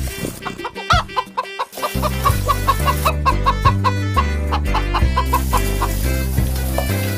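A hen clucking in a quick run of short calls, about four a second, over background music with a steady bass beat.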